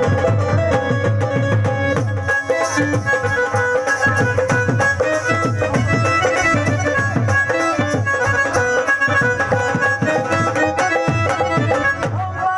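Live Punjabi folk music instrumental break: keyboard melody over a steady, fast percussion beat, played loud through a PA.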